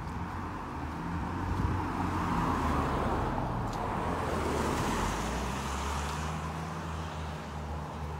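A car passing by on the street, building to its loudest in the middle and fading away again.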